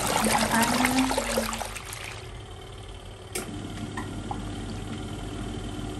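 Water splashing and trickling for about two seconds, then stopping. After that a steady low hum remains, with one sharp click in the middle.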